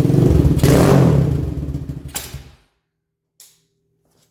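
250cc dirt bike engine in a three-wheeler, running with no air filter and being revved on the throttle. A sharp backfire pop comes from the exhaust about two seconds in, and the sound cuts off suddenly soon after.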